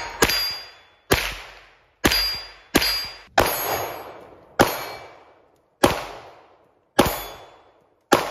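Eight single gunshots, roughly one a second, each trailing off over about a second. They come from test-firing an HK MP5 .22LR rifle and then a PSA Dagger 9mm pistol to check that both are working.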